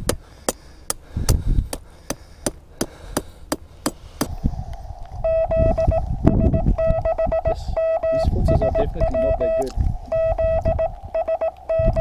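A hammer striking repeatedly, about two to three sharp blows a second, driving in an antenna peg. About four seconds in this gives way to Morse code (CW) from the ham radio transceiver: a steady mid-pitched tone keyed on and off in dots and dashes.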